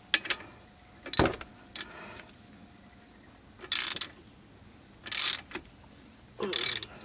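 Metal hand tools clinking, with one sharp knock about a second in, then a half-inch-drive ratchet clicking in three short bursts while working the wheel bearing hub bolts.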